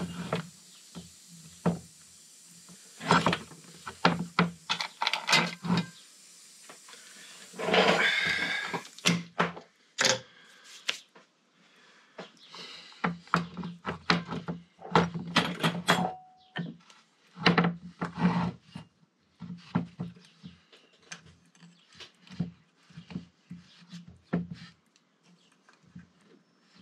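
Irregular clicks and knocks of hand tools and brake caliper parts being handled on a workbench, with a short noisy burst about eight seconds in.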